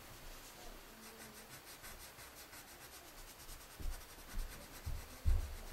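Pencil drawing on paper: faint scratching strokes, with a few soft low bumps in the second half.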